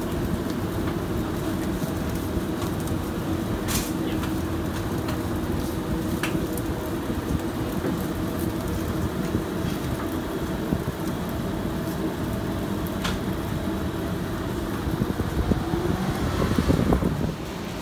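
Steady hum and rush of restaurant kitchen equipment, with a low tone running through it and a few sharp clicks. The noise grows louder and more irregular for a couple of seconds near the end.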